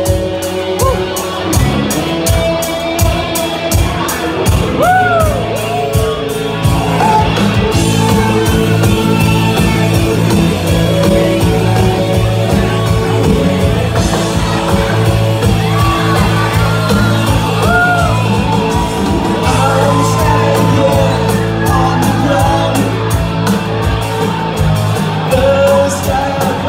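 Live band playing loudly in a bar: electric guitars, bass and drums with a steady beat, and a singer over them.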